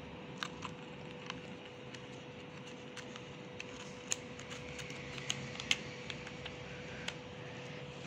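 Handmade card-paper lapbook flaps being folded and handled, making faint rustles and scattered light clicks over a faint steady hum.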